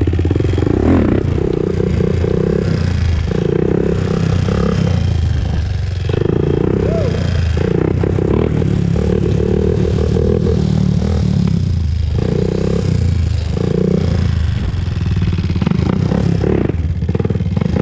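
Honda TRX400EX ATV's single-cylinder four-stroke engine running under way, its note swelling and easing repeatedly as the throttle is worked.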